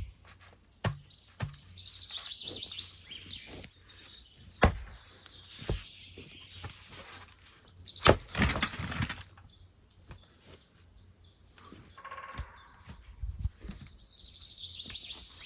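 Birds chirping and trilling, with a few sharp knocks scattered through; the loudest knock comes about eight seconds in and is followed by a brief rustling crunch.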